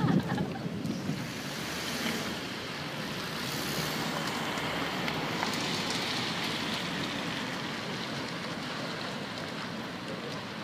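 Steady rushing noise of heavy storm surf breaking and wind, with swells of hiss a few seconds in and around the middle.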